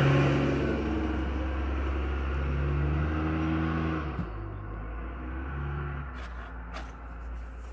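A motor vehicle's engine running nearby, a steady pitched hum that drops away a little past four seconds in and then runs on more quietly.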